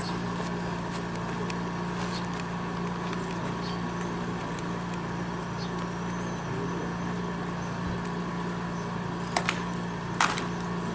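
Two sharp handclaps a little under a second apart near the end, over a steady low hum and faint scattered ticks. They are the ritual double clap (kashiwade) made when a group's representative makes an offering at a Shinto rite.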